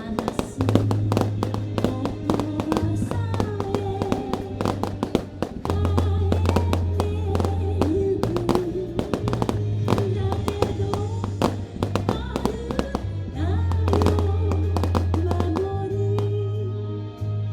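Fireworks display: many aerial shells bursting and crackling in quick succession, over loud music with a singer and a heavy bass line.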